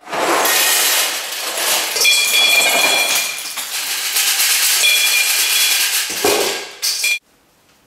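Dry rigatoni pasta poured from its cardboard box into a steel cup and stainless mixing bowl. The pieces clatter against the metal, which rings briefly twice, and the pouring cuts off suddenly near the end.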